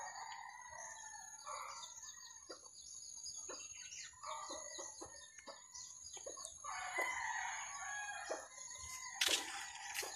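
Rooster crowing faintly a few times, each crow drawn out for about a second, over a steady high-pitched whine and scattered light ticks.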